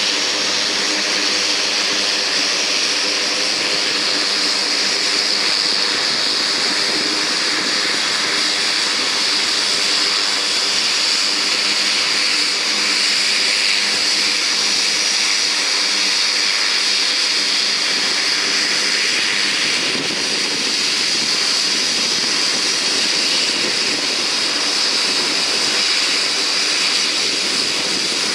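U.S. Coast Guard HC-130J Hercules running its four turboprop engines while taxiing slowly: a steady propeller drone of several low tones under a high turbine hiss. The low drone weakens about two-thirds of the way through while the hiss carries on.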